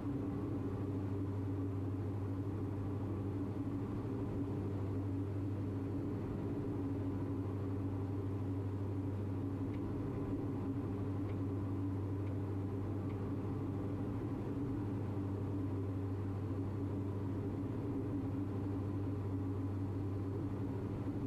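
Steady drone of a Diamond DA42's twin propeller engines heard inside the cockpit: a low hum with several steady tones over it, holding constant throughout.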